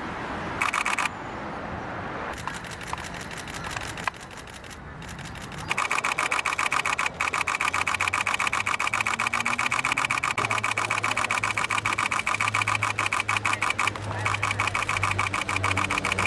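Still-camera shutters firing in continuous rapid bursts, a fast, even clatter of clicks that breaks off briefly a few times and is loudest from about six seconds in. A low, steady engine hum runs underneath in the second half.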